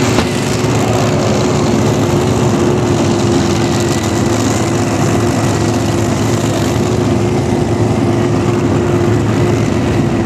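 Heavy diesel engine of a super stock pulling tractor running steadily at a constant speed, not revving, with a steady high whine over it.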